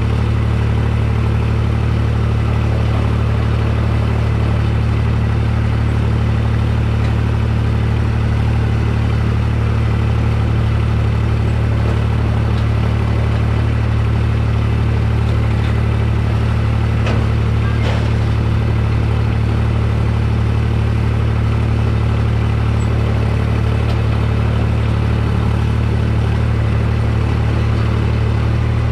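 Farm tractor engine running steadily at a constant speed, heard from on the tractor, with a couple of faint clicks about halfway through.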